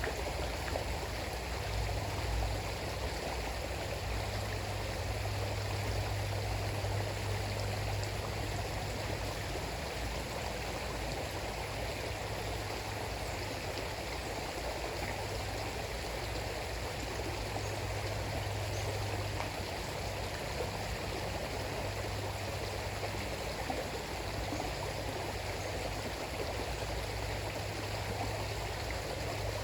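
A river flowing: a steady, continuous rush of running water, with a low rumble underneath that swells and fades.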